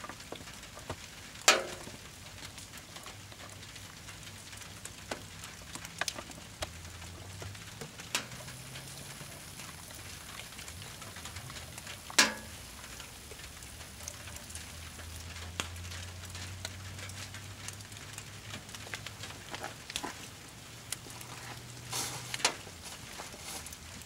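Wood and brush campfire burning in the rain, crackling and hissing steadily, with three loud pops: one early, one midway and one near the end.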